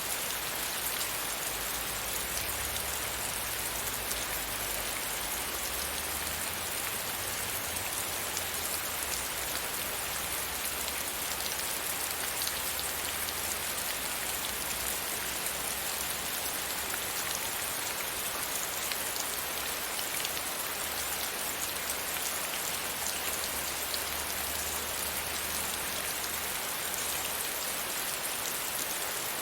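Steady rain pattering against a window pane, a dense even hiss of drops with fine individual ticks, over a faint low rumble.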